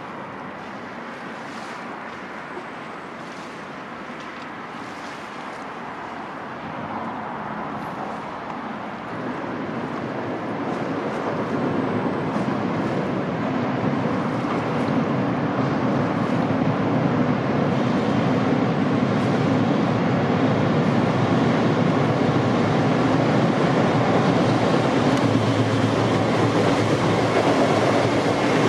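Freight train hauled by a JR Freight EF210 electric locomotive running over a railway bridge, a dense rumble of wheels on rails. It grows steadily louder as the train approaches over the first dozen seconds, then stays loud as the locomotive and container wagons pass close by.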